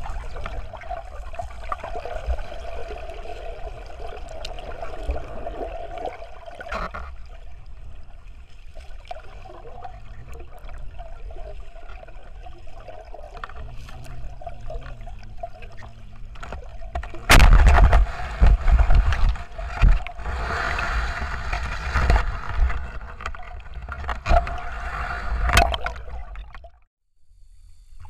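Underwater sound picked up by a submerged camera while spearfishing: a muffled water wash with scattered knocks and a faint steady hum. About two-thirds of the way through it turns much louder, with sloshing and bubbling as the diver moves through the water. Near the end it drops out briefly.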